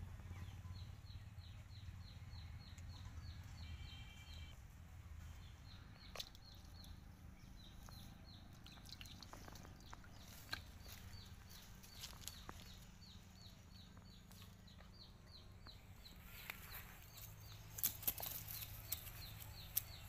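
Faint outdoor ambience: a rapid series of short, high chirps, about four a second, over a low hum, with a few sharp taps and rustles near the end.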